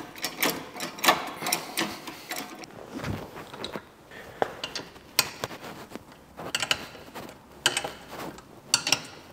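Trolley jack being pumped, its handle strokes giving a regular metallic clicking about twice a second. After a low thud, a wheel brace clicks and clanks in short bursts on the wheel nuts as they are undone.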